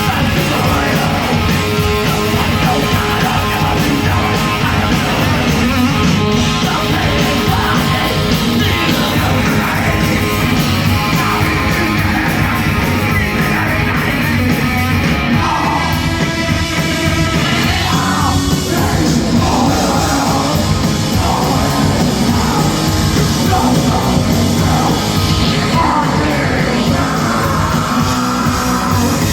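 Live metal band playing loud and fast, with yelled vocals over the instruments.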